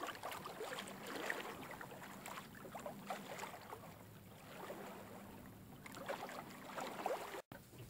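Small waves lapping and splashing irregularly against the hull of a small sailboat, a Paradox micro-cruiser, heard faintly, with a brief dropout near the end.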